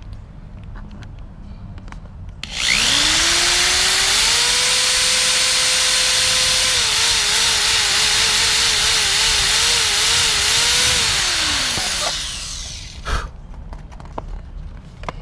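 Power drill drilling a hole through a car's front lip: the motor winds up, runs steady, wavers in pitch for a few seconds as the bit cuts, then winds down. A single sharp click follows.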